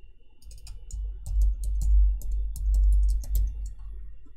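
Typing on a computer keyboard: a quick, irregular run of key clicks with dull low thuds from the desk.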